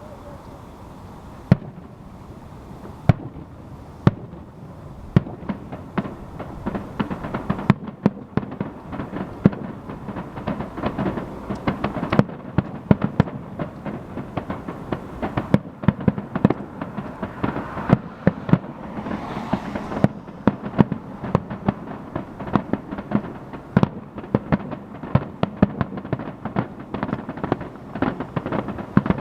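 Aerial fireworks going off: single sharp bangs about a second apart at first, then a thickening run of many overlapping bangs and crackling from about eight seconds in.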